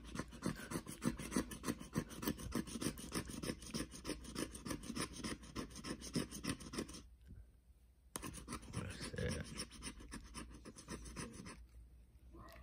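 Plastic scratcher tool scraping the coating off a scratch-off lottery ticket in fast back-and-forth strokes, about five a second. It stops for about a second some seven seconds in, then scrapes again before stopping near the end.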